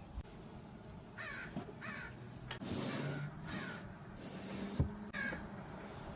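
Crow cawing about five times at irregular intervals, with a single sharp knock near the end.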